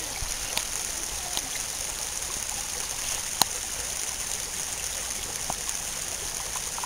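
Shallow, rocky stream running steadily over stones, with a few short sharp clicks, the loudest about three and a half seconds in.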